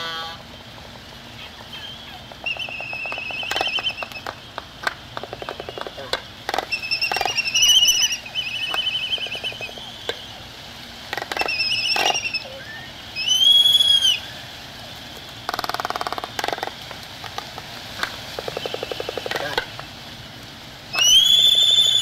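A black-browed albatross breeding colony calling: harsh trilling calls and arched, rising-then-falling squealing calls from several birds, with bursts of rapid clicking between them. The loudest calls come about two-thirds of the way in and at the very end.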